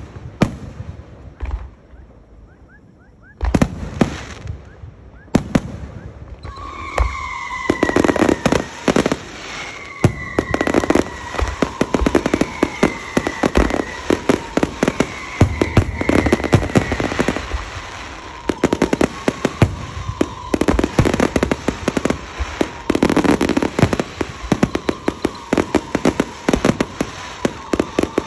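Aerial fireworks display: a few single bangs, then about six seconds in a dense barrage of crackling bursts and booms that keeps going. A high tone that dips slightly in pitch recurs over the barrage.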